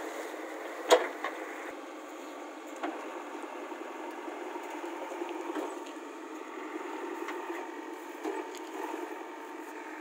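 JCB 3DX backhoe loader's diesel engine running steadily while its backhoe arm digs in wet mud. A sharp knock comes about a second in, and a few lighter knocks follow later.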